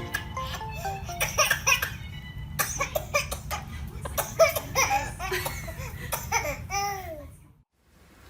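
Repeated bursts of hearty laughter over background music, cutting off abruptly about a second before the end.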